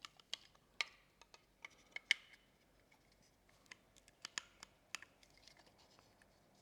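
Faint, irregular clicks and light scrapes of hard plastic parts being handled and fitted together, as a bare-bulb head is set onto a Godox AD200 flash body.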